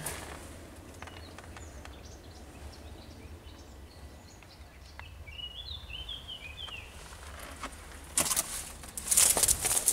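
Faint small-bird chirps over a low steady rumble, with a short run of quick chirps about halfway through. Near the end come loud bursts of rustling, crunching noise.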